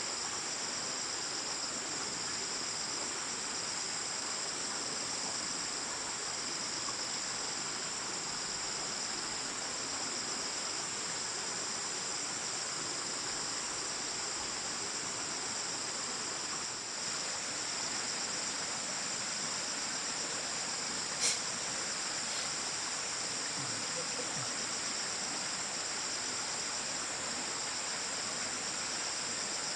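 Steady, high-pitched chorus of insects such as crickets, trilling without a break, with a single sharp click about two-thirds of the way through.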